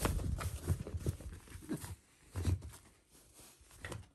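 A Shiba Inu grabbing and tugging at a cushion held close to the microphone: rustling fabric and dull thumps in several bursts, heaviest in the first two seconds, again about two and a half seconds in, and briefly near the end.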